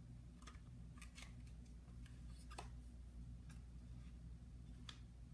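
Near silence with a low steady hum and a few faint, scattered clicks, like a plastic toy being handled.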